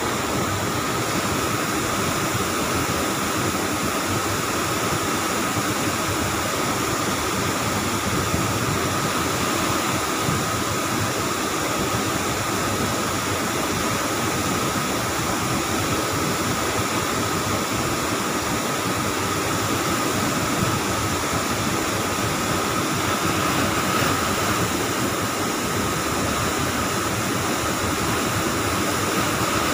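Train being washed: a steady rush of spraying water with a constant high whine from the machinery.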